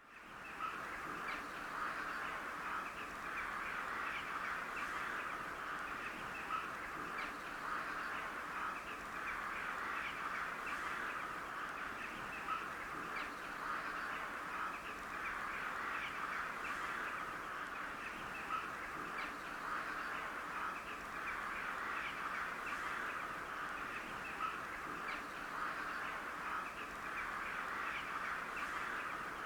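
A flock of crows calling at once in a dense, continuous chorus. Louder single caws stand out every couple of seconds.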